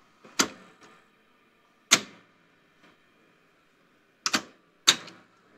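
Solenoids in a National NV-7200 top-loading VHS VCR clacking as the transport switches between modes such as review and cue: a sharp click about half a second in, another about two seconds in, a quick double click a little past four seconds, and one more near five seconds.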